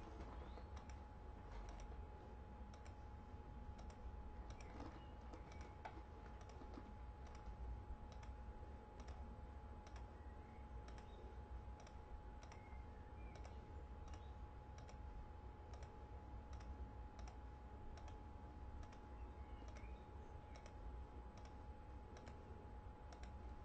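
Faint room tone with a steady hum, over which a run of faint, short clicks comes at about two a second.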